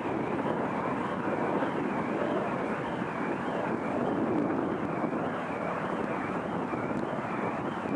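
Steady, wind-like rushing noise, with a faint high tone warbling up and down about three times every two seconds.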